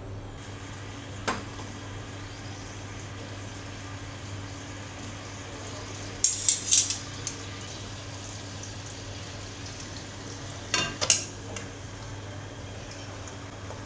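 Teriyaki sauce of sake, mirin and soy sauce bubbling and sizzling at a boil in a nonstick wok, over a low steady hum. About halfway a quick run of sharp crackles, and a few seconds before the end a clatter as chicken pieces are slid off a plate into the pan.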